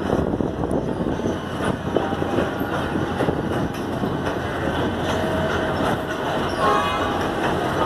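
Diesel-hauled goods train rolling across a railway bridge: a steady rumble of wagons with scattered wheel clicks over the rail joints and some faint wheel squeal.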